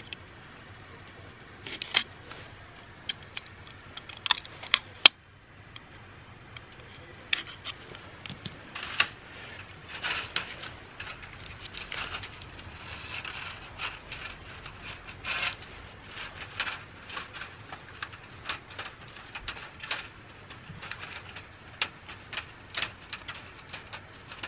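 Handling noises: sharp clicks and taps of small metal bait tins, with crackling of a clear plastic-bottle crayfish trap as the tins are put into it.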